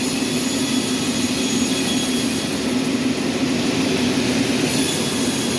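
Sawmill machinery running steadily, a constant loud drone with a strong low hum and a faint high whine.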